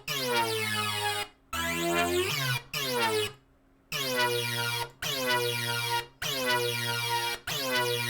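Spire software synthesizer playing a dubstep-style patch: a run of held notes, each opening with a downward-sweeping attack, over a steady bass note. Short breaks fall between the notes, with one longer break partway through.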